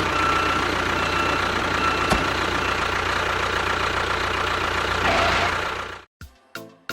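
A small motor running steadily with a fast low pulsing and a thin steady whine, with one sharp click about two seconds in. It cuts off suddenly about six seconds in.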